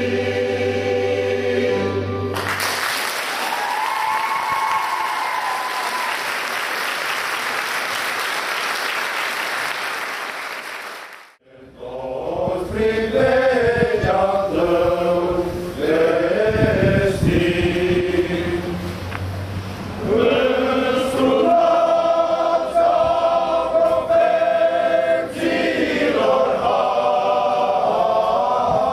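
A mixed choir holds a final chord, followed by applause for about nine seconds. After a sudden break, a men's choir sings in several parts.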